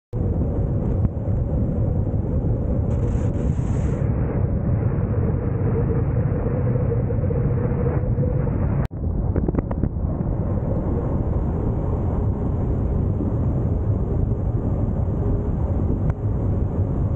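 Steady low rumble of road and wind noise from a moving vehicle at highway speed, broken once by a brief dropout about nine seconds in.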